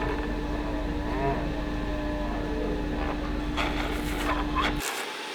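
Woodworking machinery running in a wood shop, a steady hum over a low rumble, with scraping and whining from the work in the second half. The machine sound cuts off abruptly just before the end.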